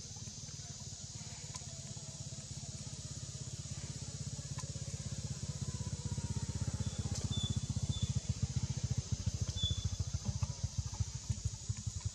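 Low engine rumble with a fast, even pulse, growing louder, over a steady high insect hiss; two short high chirps come in the second half.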